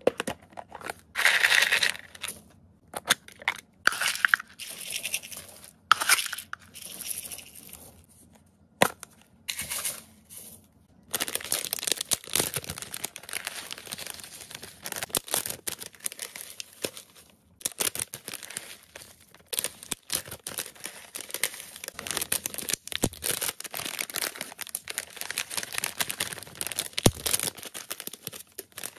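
Dry rodent feed being poured and mixed by hand: plastic bags crinkling, and pellets, seeds and hay rattling and rustling into plastic storage tubs, with irregular sharp clicks and short pauses.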